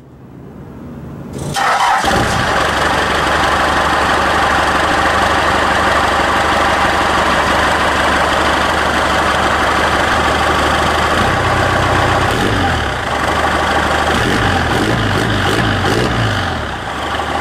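1982 Ford F-150 engine starting, catching about a second and a half in, then running loudly at the tailpipe. Its pitch wavers up and down in the last few seconds.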